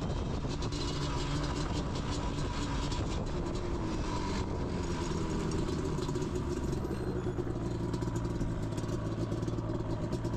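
Yamaha Banshee 350's twin-cylinder two-stroke engine running at fairly steady, moderate revs as the quad is ridden along, its pitch dipping slightly about four seconds in and then holding.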